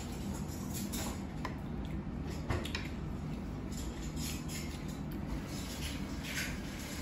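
Spoons scraping and clinking against china plates and a metal serving bowl as people eat and serve themselves, a scattering of light clinks over a steady low hum.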